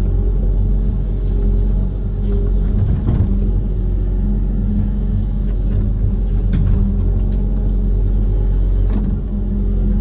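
Amphibious excavator's diesel engine running steadily under work, a deep rumble with a few brief knocks about three seconds in and near the end.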